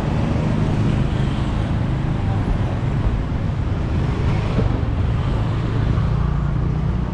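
City street traffic: motorcycle and car engines passing close by over a steady road rumble, with one vehicle passing loudest about halfway through.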